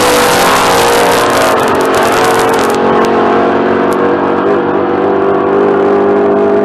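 Engine of an old pickup truck drag racing at full throttle as it runs away down the strip, a loud steady engine note with harsh exhaust noise on top. The harshest top end drops away about three seconds in.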